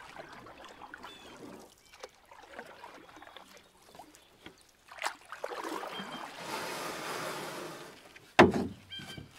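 Canoe paddling on calm water: a few seconds of the paddle swishing and dripping in the middle, then a loud knock near the end, among small scattered clicks.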